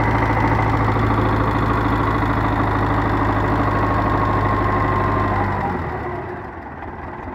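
Belarus tractor's diesel engine running loud and steady close by, then dropping to a quieter run about six seconds in.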